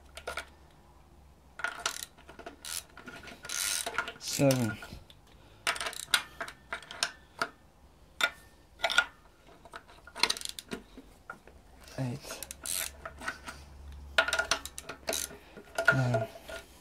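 Hand tools working the cylinder head bolts of a BMW M52TU/M54 six-cylinder head: bursts of ratchet clicks and metal-on-metal clinks from a socket and extension as the bolts are loosened in sequence. Three short creaks falling in pitch come about four seconds in, at about twelve seconds and near the end.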